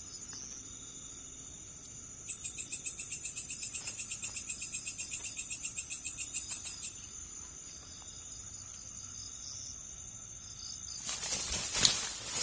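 Insects chirping in a steady high-pitched chorus. About two seconds in, a rapid pulsed trill of about eight pulses a second starts and runs for some four and a half seconds. Near the end there is a short burst of noise with a sharp knock.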